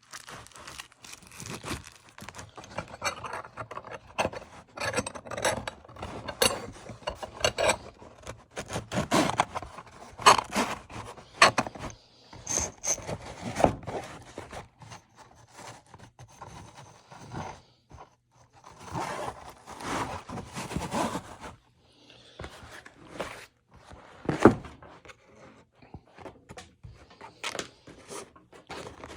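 Sharpening tools and a waxed canvas tool roll being handled: irregular scraping, rubbing and light knocks, with one sharper knock about three-quarters of the way through.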